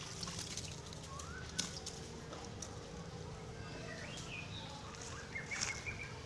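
A few short, high chirping calls, each rising in pitch, over a steady low background hum. A sharp click about one and a half seconds in is the loudest sound, with a few more clicks near the end.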